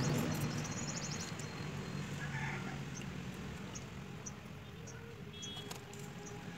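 Tomatoes being swished and rubbed by hand in a steel bowl of water, with light splashing and faint clicks, over a low steady hum. Faint bird chirps sound in the background.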